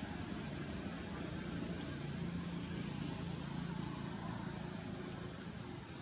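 Steady outdoor background noise with a low, continuous motor hum.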